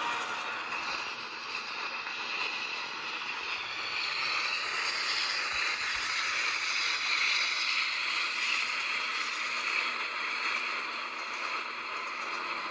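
Steady rushing noise of a moving train heard from aboard a caboose: wheels running on the rails and air rushing past, swelling slightly in the middle.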